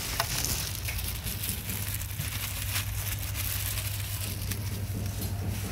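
Thin plastic bag crinkling and crackling irregularly as a hand wrapped in it handles food, over a steady low hum.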